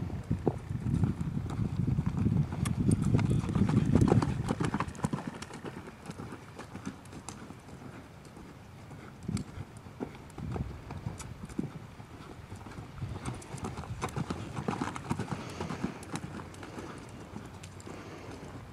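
A ridden horse loping on arena dirt: hoofbeats thudding on the soft ground. A louder low rumble in the first five seconds gives way to fainter, sharper hoof strikes.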